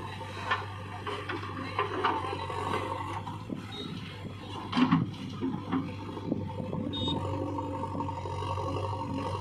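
Backhoe loader's diesel engine running steadily, with scattered scrapes and knocks as it works, the loudest cluster about five seconds in.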